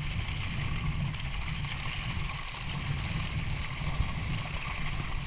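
Water sloshing and splashing with a steady low rumble as a netful of live fish is hauled over the side into a wooden boat at sea, with a single knock about four seconds in.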